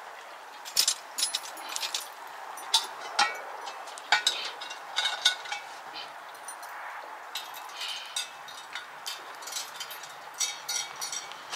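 Metal clinking and knocking as a cast-iron pot is handled and hung from a tripod over a log fire, with irregular sharp clinks throughout, some with a short ring.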